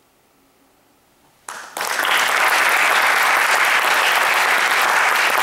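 A hush, then about a second and a half in, an audience breaks into applause that quickly fills out and keeps going steadily.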